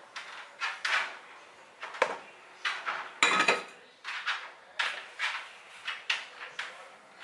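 Irregular clatter of kitchenware: a spoon scraping and tapping a small metal saucepan as it is emptied into a plastic mixing bowl, then the bowl knocking on the stove grate as bread dough is mixed by hand. Short knocks and clicks come about two a second, with a longer, louder clatter a little past three seconds in.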